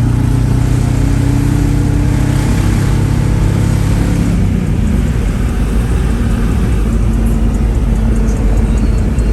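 Car engine running and road noise while driving, loud and continuous. For the first four seconds or so the engine holds a steady tone, then it turns into a rougher, rushing noise.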